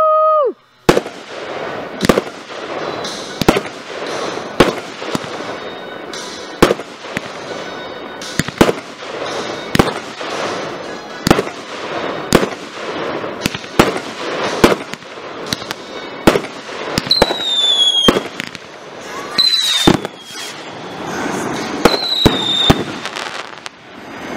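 Fireworks going off: a rapid run of sharp bangs and crackles, with whistling fireworks gliding down in pitch several times in the second half. A loud steady tone sounds in the first second and cuts off.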